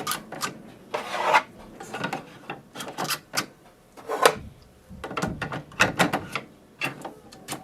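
Plastic ink cartridges being slid into an HP OfficeJet Pro 9020's cartridge slots and pushed in, with scattered sharp clicks and short scraping rubs of plastic on plastic.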